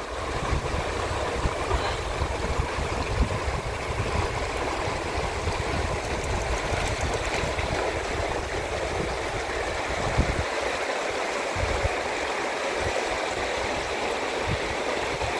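Shimanto River water rushing steadily past, with a low, gusting rumble of wind on the microphone that drops away briefly about ten seconds in.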